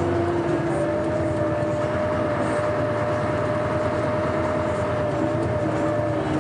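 Scania K420 coach's rear-mounted diesel engine running steadily under way, a constant drone with a couple of steady whining tones over road noise.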